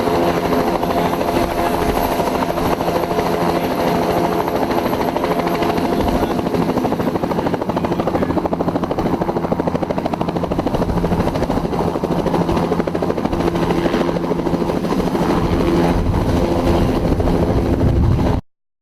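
Bell 206 helicopter with its Allison turbine engine and two-blade main rotor running steadily: several steady engine tones over a rapid, even pulse from the rotor. The sound cuts off suddenly near the end.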